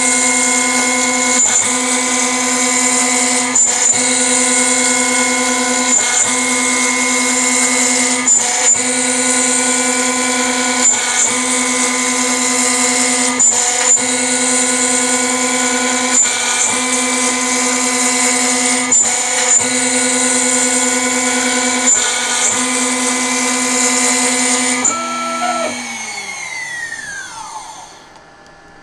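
CNC router spindle running steadily while a tapered ballnose bit cuts an inlay pocket in walnut, with a short tick about every two and a half seconds. About 25 seconds in, the spindle shuts off and its whine falls away as it spins down.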